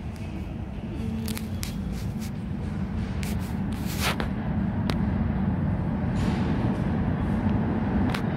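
New York City subway train approaching the station through the tunnel, its low rumble growing steadily louder, with a few sharp clicks between about one and four seconds in.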